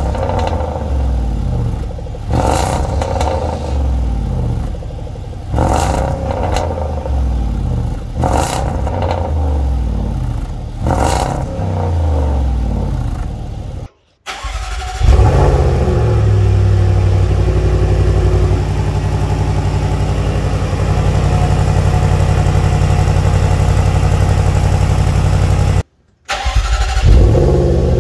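Jaguar F-Pace SVR's supercharged 5.0-litre V8 heard at the tailpipes, blipped through about five free revs that each rise and fall away. After a break, the engine is started, flares, and settles into a steady fast idle. Near the end comes another start with a flare.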